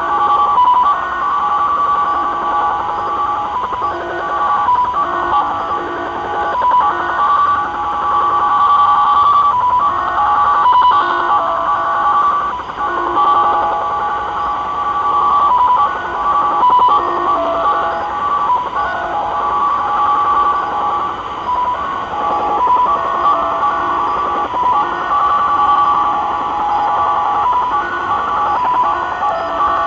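Japanese "slot machine" (XSL) military digital data signal on 4154 kHz, heard through a Tecsun PL-600 shortwave receiver in upper sideband: a busy warble of several tones around 1 kHz that keep switching in a fast, irregular pattern. The signal runs over a faint hiss of radio static.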